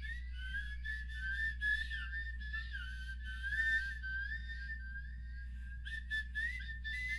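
A slow whistled melody: one high, wavering tone gliding from note to note, over a steady low hum.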